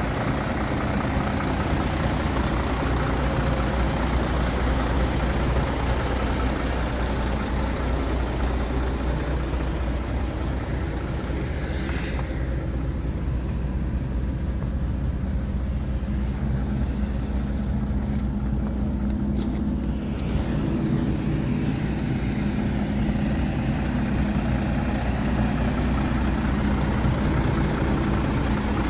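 Scania P94 tipper truck's 9-litre five-cylinder diesel engine idling steadily, with a few light clicks about halfway through.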